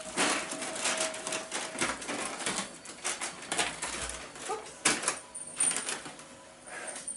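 Wrapped sweets being handled on a plate: a dense run of crinkling wrappers and small clicks and clatters, with a sharper click about five seconds in.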